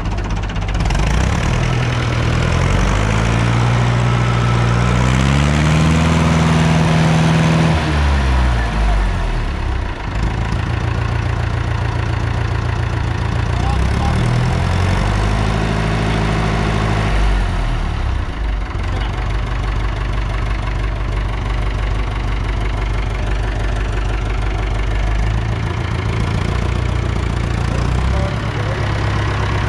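Fordson Power Major tractor's four-cylinder engine running just after starting. It idles steadily and is revved up twice: a longer rev held for a few seconds about two seconds in, and a shorter one in the middle, each dropping back to idle.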